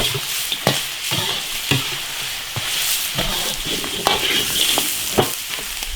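Duck pieces and beef tripe sizzling in oil in an iron wok as they are stir-fried dry, with a sharp scrape or clack of the stirring utensil against the wok about once a second.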